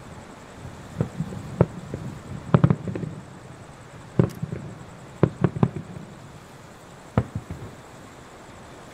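Fireworks aerial shells bursting at a distance, a string of sharp booms in clusters: several about a second in, a tight flurry around two and a half seconds, more between four and six seconds, and a last one near seven seconds.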